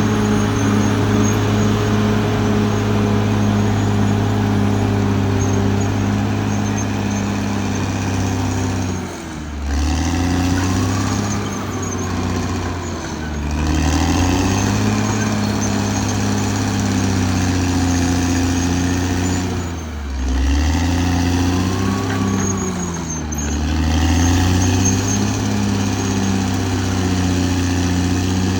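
Diesel engine of a Caterpillar D6R XL bulldozer running at working revs. Its pitch sags and recovers several times as it comes under load and eases off.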